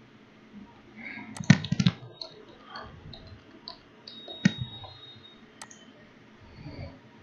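Computer keyboard keystrokes as a PIN is typed: a quick run of key presses about a second and a half in, then a few single clicks.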